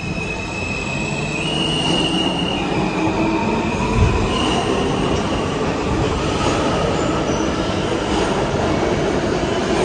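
Kawasaki R160 subway train accelerating out of a station, its electric propulsion giving a whine that steps up and down in pitch over a growing rumble of the wheels on the rails. One short thud about four seconds in.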